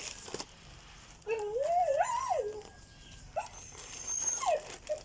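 A dog whining: one long wavering whine that rises and falls in pitch, followed by two short falling cries.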